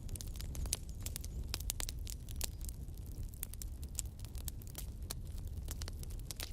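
Wood fire burning in a fireplace: dense, irregular crackles and sharp pops from the burning logs over a low, steady rumble of the flames.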